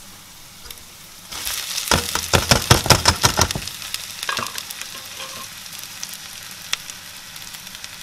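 Soaked, washed basmati rice tipped into hot oil with frying onions and spices: a loud burst of sizzling and crackling for about two seconds, settling into a steady sizzle with occasional pops.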